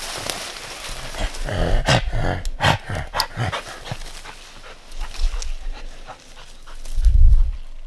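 A leashed hunting dog panting and whimpering, with short bursts of rustling in the undergrowth.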